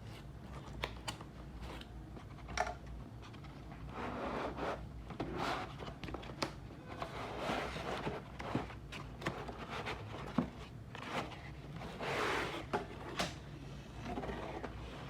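Packaging being handled during an unboxing: rustling and scraping swishes with scattered clicks and taps.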